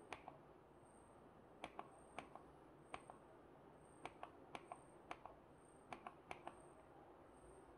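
Plastic push-buttons on a Bajaj Pygmy Go rechargeable mini fan being pressed over and over to switch its LED light: about a dozen short sharp clicks, some in quick pairs, against near silence.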